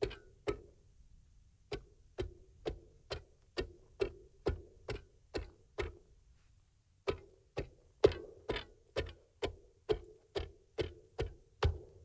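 Ice chisel chopping a hole through pond ice: sharp, ringing strikes about two a second, stopping twice for about a second.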